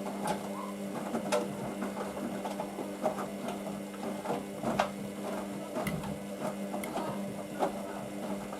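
Hoover VisionDynamic DYN9144D3X washing machine in its main wash, the drum motor running with a steady hum while the wet laundry tumbles, with irregular clicks and knocks from the load against the drum.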